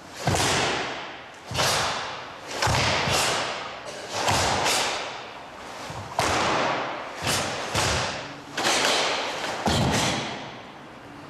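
Karate gis snapping and bare feet stamping on a wooden dojo floor as a group performs kata techniques in unison: about a dozen sharp snaps, some in quick pairs, each ringing out in the hall.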